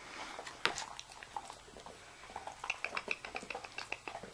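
A dog chewing a soft baked dog cookie: irregular small clicks and smacks, with one sharper click under a second in and a busier run from a little past halfway.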